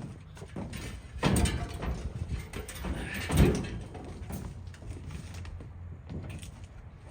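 Scrap metal being handled and loaded, with a loud scraping clatter about a second in and a sharper clank about three and a half seconds in.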